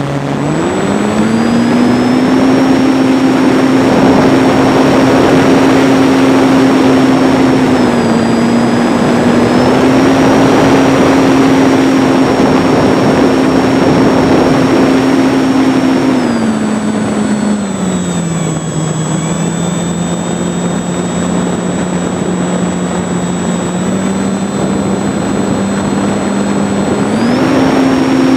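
Electric motor and propeller of a ParkZone T-28 RC warbird in flight, heard from a wing-mounted camera. The pitch rises as the throttle opens just after the start and holds steady, with a high whine above it. It drops to a lower pitch at part throttle about two-thirds of the way through, then climbs again near the end. Wind rushes over the microphone throughout.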